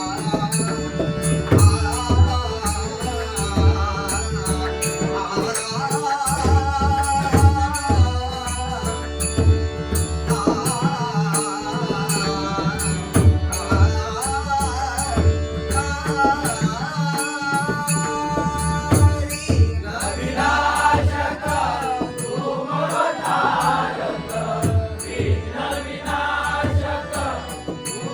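Traditional Konkan devotional bhajan: a male lead voice sings over a hand drum and small hand cymbals keeping a steady beat. From about two-thirds of the way in, more voices join and the singing gets louder.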